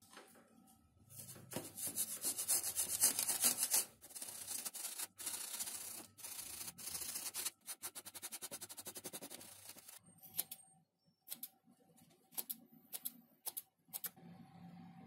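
Foam sponge rubbing and dabbing acrylic paint onto a foam model-plane wing: a fast run of dry, scratchy scrubbing strokes, loudest in the first few seconds. Near the end it thins to a few separate short strokes.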